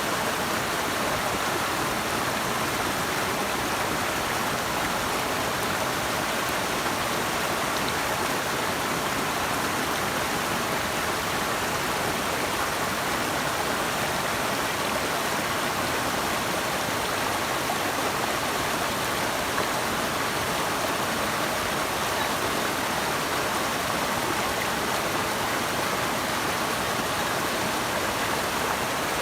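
Running water from a stream or waterfall, a steady, even rush with no breaks.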